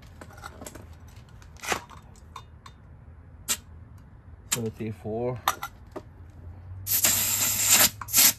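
Metal clinks and clicks of tools being handled, then about seven seconds in a loud hiss of compressed air lasting about a second, followed by short bursts: an air chuck filling a tire after its bead has seated.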